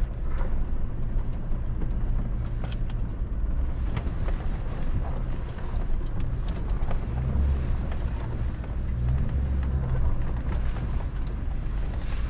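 Off-road vehicle driving slowly over a rocky wash, its engine a steady low rumble that rises and falls a little in pitch, with a few knocks and rattles from rocks and the body.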